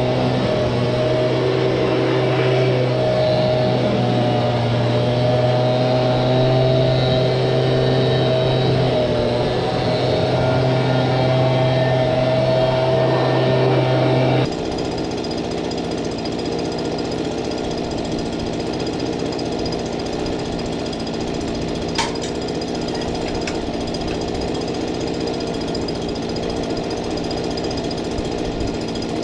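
A blower running steadily while the round baler is blown clean of loose crop debris. The pitch and tone change abruptly about halfway through, and there is one sharp click later on.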